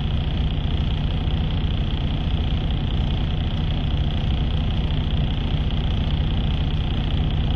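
Semi truck's diesel engine running steadily, heard inside the cab: an even low rumble with a faint high hiss over it.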